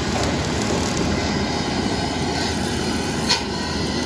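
Bobcat T770 skid steer's diesel engine running steadily with its Vail brush cutter attachment clearing brush, and one sharp crack about three seconds in.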